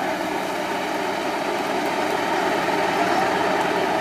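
Engine of a Tatra 813 8x8 trial truck running steadily as the truck crawls up a steep slope, growing a little louder in the second half.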